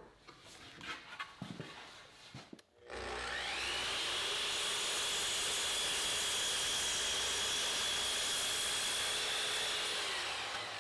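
Miter saw starting up about three seconds in, its motor whine rising to a steady pitch as the blade crosscuts a wooden board to length, then starting to wind down near the end. A few faint knocks of the board being handled come before it.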